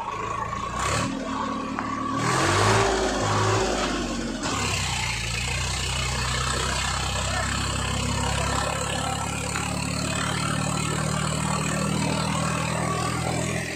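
Swaraj 855 FE tractor's three-cylinder diesel engine pulling a loaded trolley. Its pitch rises and falls for the first few seconds as it revs, then it runs at a steady pitch.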